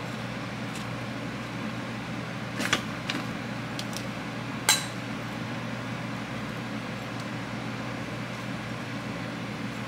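Steady low room hum, with a few light knocks and clicks between about three and five seconds in as a houseplant is being potted in soil.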